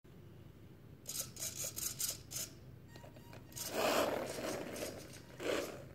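Small electric RC car's motor and gears whirring in about five short bursts, then a longer, louder whirr with the wheels rolling on a wooden floor as the car drives off, and one more short burst near the end.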